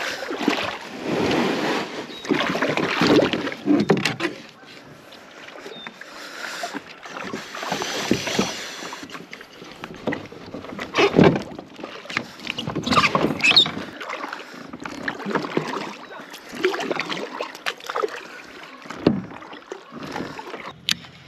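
Kayak on the water: irregular swishing and splashing of water around the hull, with a few sharp knocks along the way.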